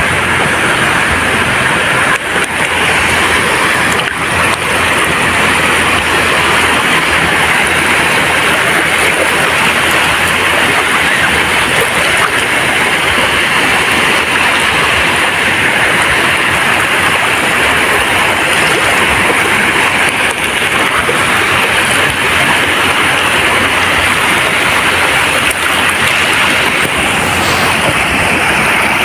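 Sea surf washing onto a beach: a loud, continuous rushing of water with no distinct gaps between the waves.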